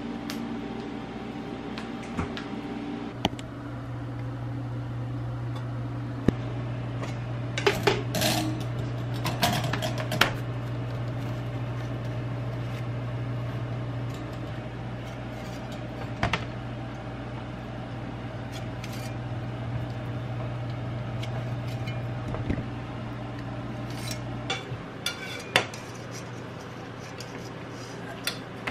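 A metal spatula clinks and scrapes against a metal baking sheet as baked cookies are lifted off, with scattered clanks of pans and dishes over a low steady hum.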